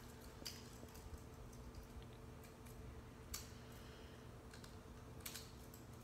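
Faint, scattered plastic clicks of a Beyblade being handled and snapped back together by hand, a few sharp clicks spread over several seconds.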